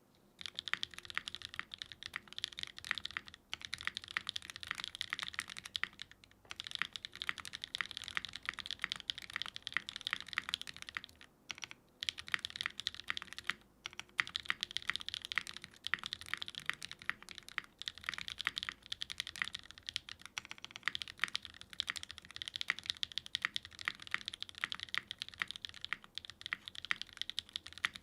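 Typing on a Geonworks F1-8X 722 mechanical keyboard with lubed Gateron Cream Soda switches, an aluminum plate on gasket strips and GMK keycaps. It gives a dense, steady run of key clacks broken by a few brief pauses.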